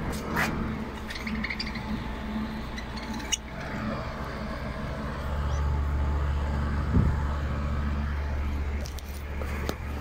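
A steady low machine hum that grows louder about halfway through, with a few short clinks and scrapes of handling against a wire bird cage.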